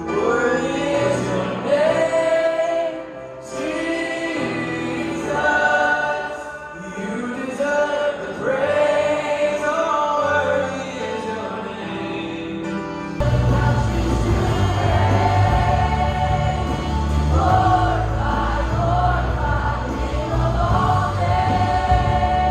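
Background music with a choir singing; a heavy bass line comes in about halfway through.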